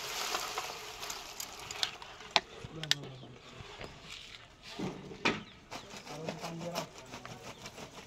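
Wet concrete being tipped from metal pans into a steel column formwork, with several sharp knocks of the pans against the form and rebar.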